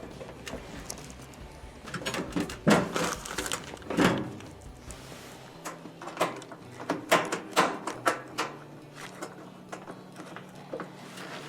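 Irregular metallic clicks, scrapes and knocks of Phillips screws being driven by hand into a range's sheet-metal rear panel, with the loudest clatter in two clusters, about two seconds in and again about seven seconds in.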